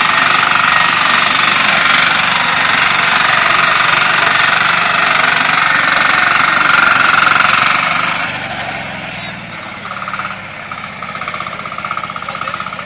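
Small walk-behind corn harvester's engine and cutter running steadily while cutting maize stalks; the sound drops to a lower level about eight seconds in.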